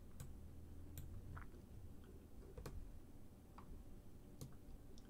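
Faint, irregular computer mouse clicks, about seven of them, as nodes are selected and dragged in the Blender node editor, over a low steady room hum.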